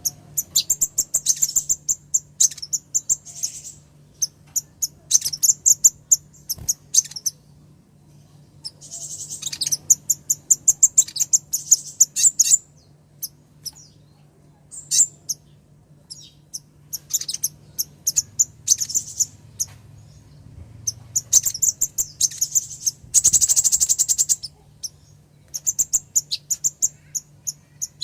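Female sunbird (konin, 'kolibri ninja') calling, the call of a female to a male: bouts of rapid, high-pitched chirps a second or two long with short pauses between them, and a denser, faster trill about 23 seconds in. A faint steady low hum lies underneath.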